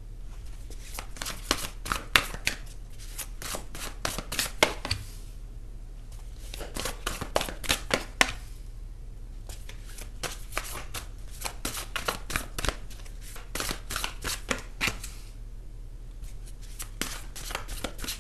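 A deck of tarot cards being shuffled by hand: runs of quick, light card clicks in four bursts, separated by short pauses.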